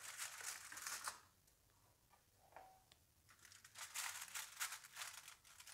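Aluminium foil crinkling as hands lay whole fish on a foil-lined tray and press them into place. The rustling comes in two spells: over about the first second, then again from about three and a half seconds until near the end.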